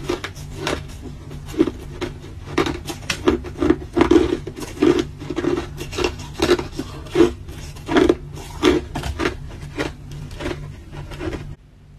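Hard ice being chewed: a run of crisp, irregular crunches, about two or three a second, that stops about a second before the end.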